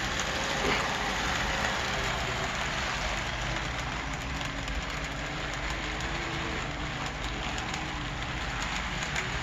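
Brass OO gauge model steam locomotive running on layout track with its passenger cars: a steady rolling hiss of wheels on rail with a faint wavering motor tone and a few light clicks.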